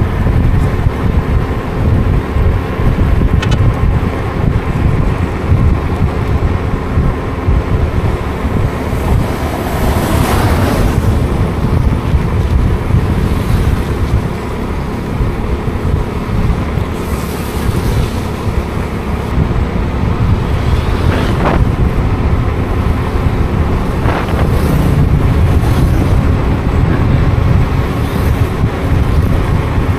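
Wind buffeting the microphone over a running vehicle engine, with several louder swishes like traffic going past, about ten, seventeen, twenty-one and twenty-four seconds in.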